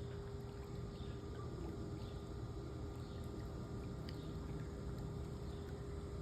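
Steady outdoor background noise with a constant low hum, and a couple of faint, short high chirps.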